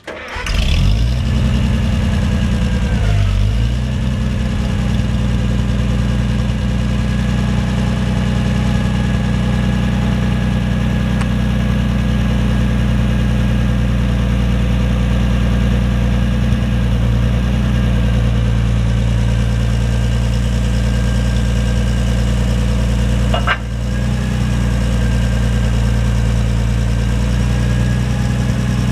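Pattibone "25" Multikrane crane tractor's engine running at a steady idle. It settles over the first few seconds. Late on there is one brief click and a momentary drop in level.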